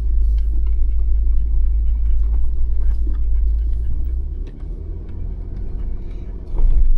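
Jeep Wrangler crawling slowly over rough off-trail ground, its engine a steady low rumble, with scattered ticks and knocks from the tyres and body working over the terrain and a louder jolt near the end.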